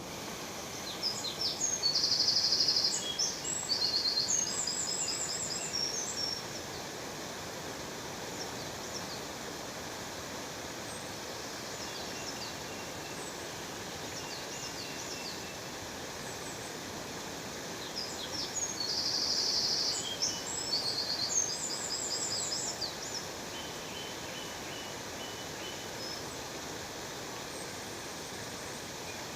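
Steady rush of a waterfall, with a songbird singing over it twice, a high, fast trilling song phrase near the start and again past the middle, and a few scattered chirps between.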